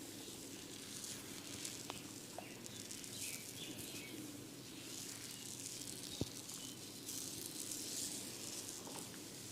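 Faint scratching and rustling of hair during a barber's head massage, with one sharp click about six seconds in.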